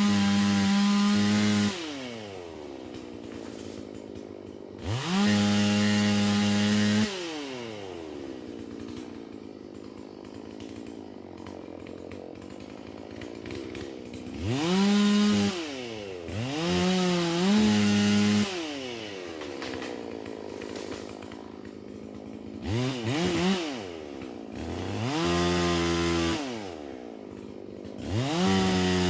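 Holzfforma G444 two-stroke chainsaw idling and being revved to full throttle about seven times, each rev held for a second or two before dropping back to idle.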